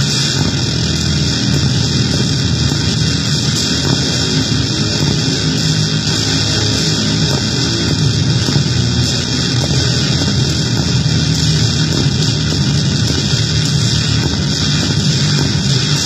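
Homemade noise pedal being tested: a loud, steady wall of distorted electronic noise, a low rumble under a strong hiss, unchanging throughout.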